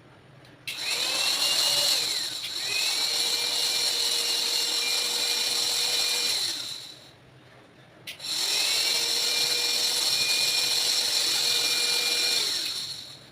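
Electric mixer motor switched on and run twice, for about six seconds and then about five, with a steady whine. Each run winds down with a falling pitch when switched off.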